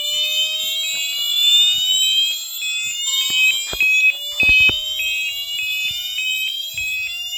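Electronic fire alarm sounders on an alarm panel's bell circuit going off together: slowly rising swept tones that start over about every three seconds, over a rapid high beeping of about three a second. A couple of dull knocks come near the middle.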